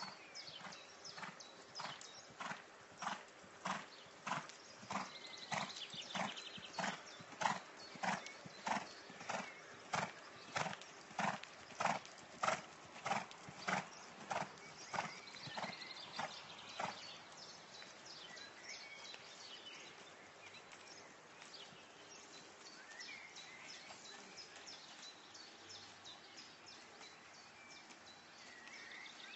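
Hoofbeats of a ridden grey horse moving on an arena's chip surface, a steady rhythm of about two beats a second that fades after about 17 seconds as the horse moves away.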